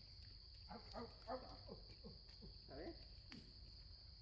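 Steady high-pitched insect drone with a few faint, short cooing calls from a young monkey, a cluster about a second in and one more near three seconds.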